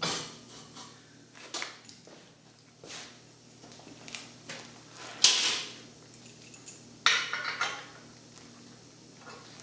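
Metal clanks and knocks of hard objects being handled and set down, some ringing briefly; the loudest comes about five seconds in, with another about seven seconds in.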